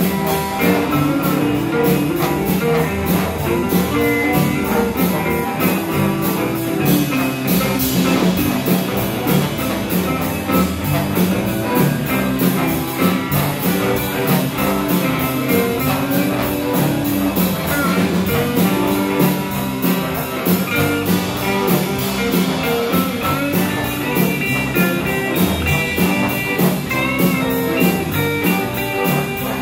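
Live band playing a blues-style number on electric guitars, bass and drum kit, with a trombone playing over it.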